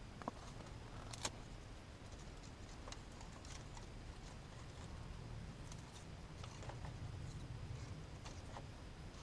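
Dry dead sticks clicking and knocking against each other as they are laid across and wedged into a stick cage trap, in scattered light clicks with a sharper one about a second in.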